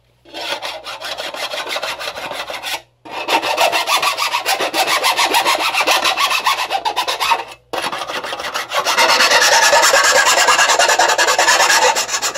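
Hand file rasping quickly back and forth over the freshly cut edge of a cracked cymbal, smoothing the edge left where the crack was cut out with metal snips. The strokes run fast and even, stopping briefly twice, about three seconds in and again near eight seconds.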